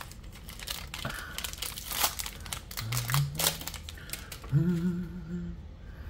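Foil wrapper of a Magic: The Gathering collector booster pack crinkling as it is torn open and pulled off the cards. A voice hums briefly twice in the second half.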